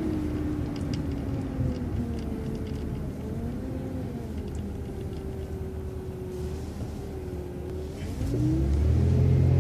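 City transit bus driving on through an intersection: a steady engine rumble with a drivetrain whine that rises and falls in pitch, the engine growing louder and heavier about eight seconds in as it pulls harder.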